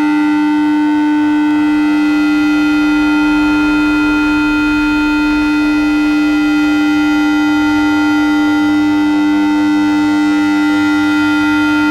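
Steady electronic tone, a strong low note sounded together with a fainter higher one and some weaker overtones, held unchanged without any rise or fall.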